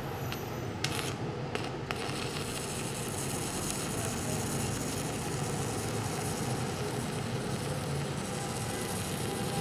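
Stick (MMA) arc welding with a stainless-steel electrode on a BTEC MMA-200 Mini inverter welder: a few sharp crackles as the arc is struck, about one to two seconds in, then the steady crackling hiss of the running arc.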